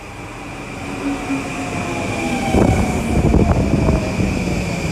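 Long Island Rail Road electric train running in along the platform, growing louder as it nears, with a whine that falls slowly in pitch. From about halfway in, wheels knock and clatter over the rail joints.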